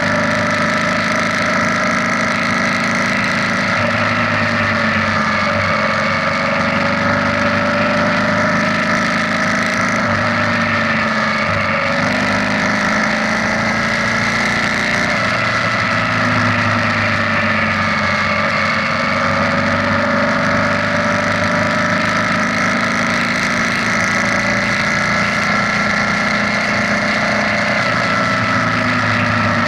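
BMW R nineT's air/oil-cooled boxer-twin engine running at a steady cruise, its pitch drifting slightly up and down with small throttle changes, over wind and road noise.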